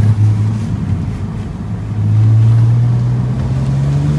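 BMW Z4 sDrive35is's twin-turbo straight-six pulling through a gear under acceleration, its note rising slowly in pitch and getting louder about two seconds in.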